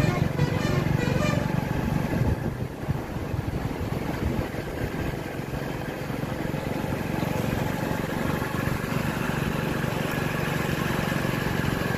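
Motorcycle engine running steadily with road noise, a little louder in the first couple of seconds.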